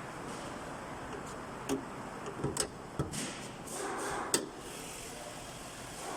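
2022 Kia Sorento engine running after a cold start, a steady even noise, with several sharp clicks and knocks over it; the loudest click comes a little past halfway.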